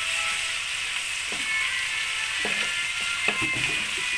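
Chopped red-chilli sambal and fried eel sizzling in hot oil in a frying pan, a steady hiss. A spatula knocks and scrapes through the mixture a few times, about a second apart, as it is stirred.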